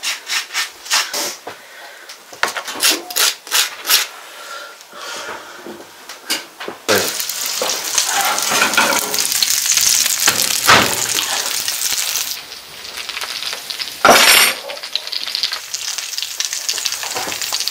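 Slices of sucuk sizzling in a hot pan: a dense crackling hiss that starts about seven seconds in. A single loud clunk comes about three-quarters of the way through, as of the pan being set down, and the sizzling carries on after it. Before the sizzling, scattered clicks and knocks.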